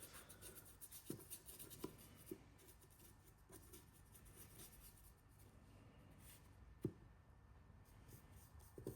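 Faint scratching of a paintbrush working paint over a 3D-printed figure, with a few soft taps.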